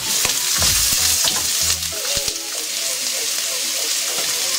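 Chopped onions and green chillies sizzling steadily in hot oil in a stainless steel pan. They are stirred during the first couple of seconds, and there are a few light knocks a little after two seconds in.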